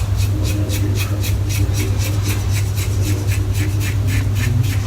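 Razor blade scraping through lathered stubble in quick short strokes, about five a second, over a steady low hum.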